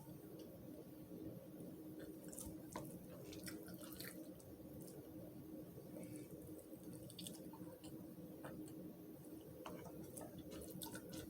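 Faint close-up chewing and mouth sounds of a person eating, with scattered small wet clicks, over a steady low hum.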